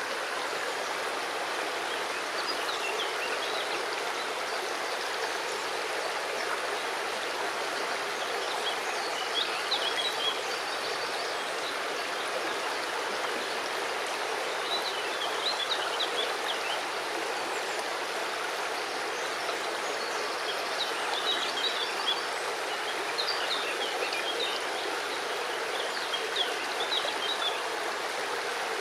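River water flowing steadily over stones, with small birds chirping in short spells several times.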